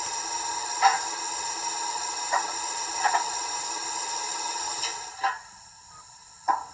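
Hornby Black 5 model steam locomotive with a sound unit: a steady electronic tone from its small speaker, broken by sharp clicks and knocks at irregular intervals. The steady sound cuts off about five seconds in, and a few more clicks follow.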